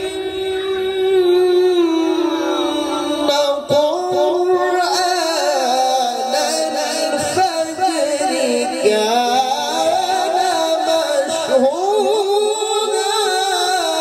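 A man's voice reciting the Quran in a melodic, ornamented style through a microphone and PA system, holding long notes that slide and trill with no pause.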